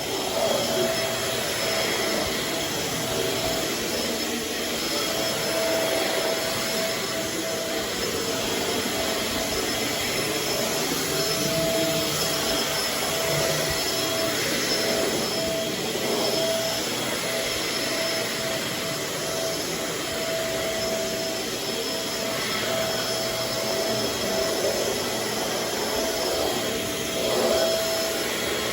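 Shark Navigator Swivel upright vacuum cleaner running steadily: a constant motor noise with a whine that comes and goes.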